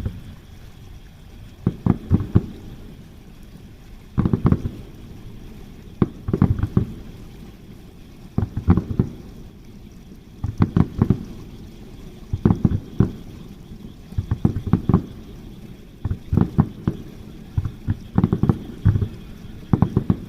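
Fireworks shells bursting overhead, a cluster of several sharp bangs about every two seconds.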